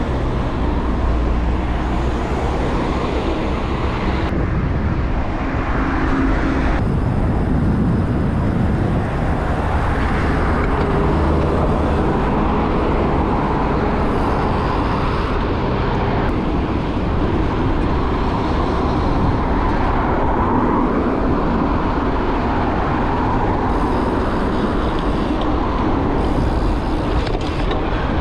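Steady road traffic noise: car engines and tyre noise with no break.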